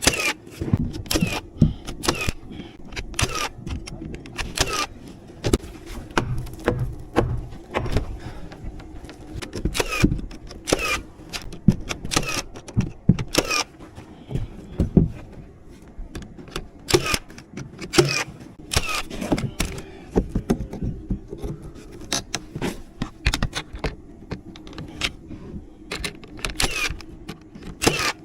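House-framing work: irregular sharp impacts of nails being driven into framing lumber, often several in quick succession, a few with a brief metallic ring, over a steady low hum.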